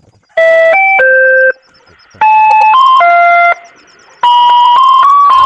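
A loud electronic chime plays a short melody of stepped notes three times, each phrase a little over a second long with short pauses between.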